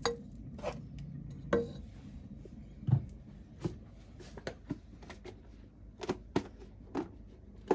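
Scattered knocks and clinks of cooking: a wooden spoon against a non-stick pot while butter melts in it, and kitchen utensils being handled, about ten separate taps.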